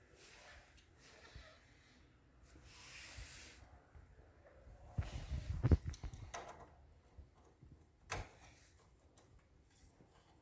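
Copier drive-unit parts being handled and fitted: rubbing and a run of low knocks about five to six seconds in, and a single sharp click about eight seconds in.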